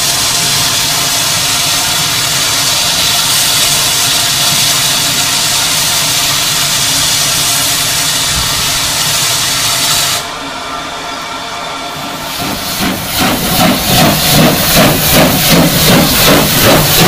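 Steam locomotive hissing loudly and steadily for about ten seconds. After a sudden break, a steam locomotive gets under way with exhaust chuffs about two a second, growing louder, over the hiss of steam blowing from around its cylinders.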